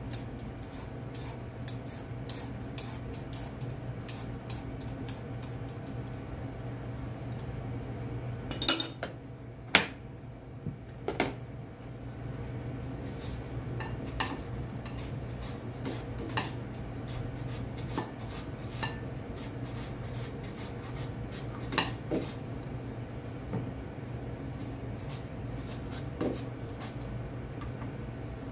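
A hand peeler scraping along a raw carrot in short repeated strokes, quick and regular at first and sparser later, with a few louder clicks of kitchen utensils about nine to eleven seconds in. A steady low hum runs underneath.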